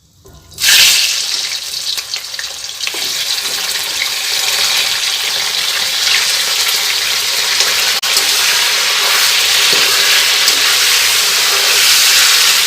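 Chicken frying in hot oil in a kadai. A loud sizzle starts suddenly about half a second in, then settles into a steady sizzle.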